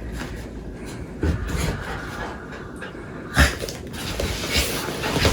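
Breathy panting noises, with a single knock about three and a half seconds in.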